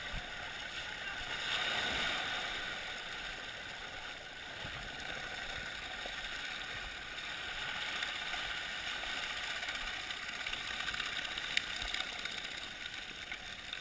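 Shallow surf foaming and washing up the sand close to the microphone, a steady hissing wash that swells about two seconds in.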